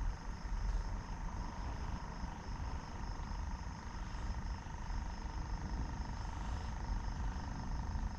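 Riverbank ambience at night: a steady low rumble under a high, evenly pulsing chorus of insects chirping several times a second.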